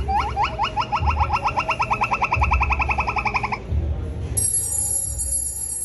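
Google Pixel 7 ringtone: a short rising tone repeated faster and faster until it becomes a rapid trill, over a low pulsing beat, stopping about three and a half seconds in. A little later a high, bright chime starts ringing.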